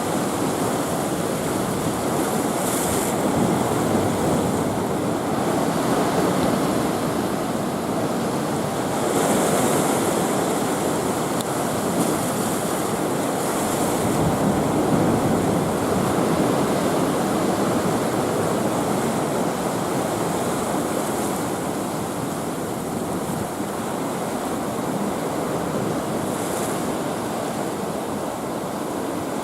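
Rough sea whipped up by typhoon swell: waves surging and washing in a steady roar, with a brighter splash of breaking water several times.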